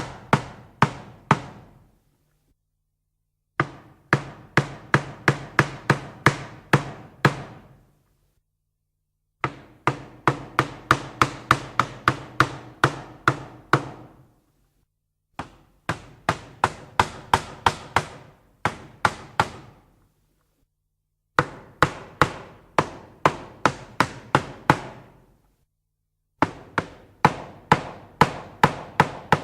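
Hammer striking repeatedly, in runs of about six to ten blows at roughly two to three a second, each blow ringing briefly. Pauses of a second or two come between the runs.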